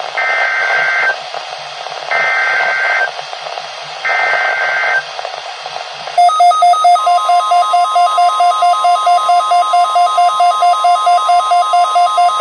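Emergency Alert System signal on NOAA Weather Radio: three short bursts of SAME header data tones, a warbling two-tone electronic screech, about two seconds apart over radio hiss. About six seconds in, a fast pulsing alarm beep starts, about five beeps a second. A second later a steady single-pitch warning tone joins it, signalling an incoming weather warning.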